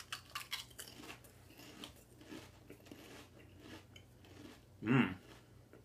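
Lay's barbecue potato chips bitten and chewed with the mouth close to the microphone: a run of crisp crunches in the first two seconds, then softer chewing. Near the end comes one short hummed voice sound, the loudest moment.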